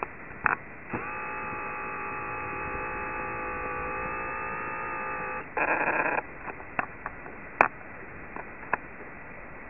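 Two-way radio receiver audio: a steady tone of several pitches held about four and a half seconds, then a short burst of static and a few scattered clicks.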